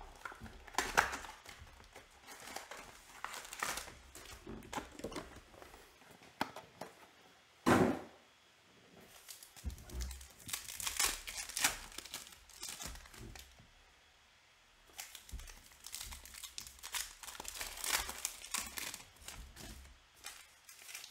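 Foil wrappers of trading-card packs crinkling and tearing as they are opened by hand, in irregular spurts with two short lulls. A single loud thump comes about eight seconds in.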